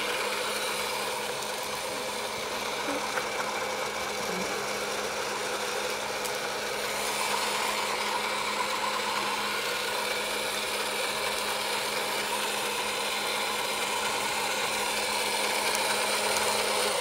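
Small electric motor of an egg-decorating spinner running with a steady hum and whir while it turns an egg, stopping suddenly at the very end.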